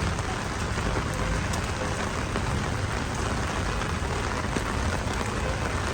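Heavy rain falling steadily on a street, an even hiss with a low rumble underneath.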